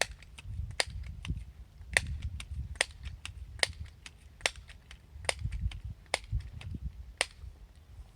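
Crosman 1377 American Classic multi-pump pneumatic air pistol being pumped up: a sharp clack each time the pump lever snaps shut, about one stroke a second, nine strokes, with a duller low sound from each stroke between.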